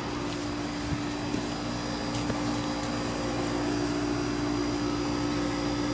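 Steady machine hum: a droning tone over an even whir, with a few faint clicks.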